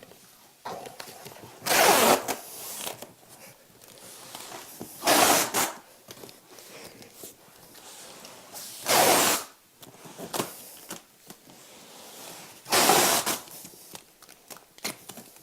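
Packing tape pulled off the roll in four quick rips, each under a second, to seal a cardboard carton, with cardboard rustling in between.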